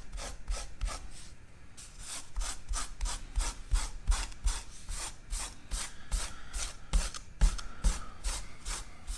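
Green abrasive scrub pad rubbed over the faces of a saw blade's tips in quick, even back-and-forth scraping strokes, cleaning off pitch and residue.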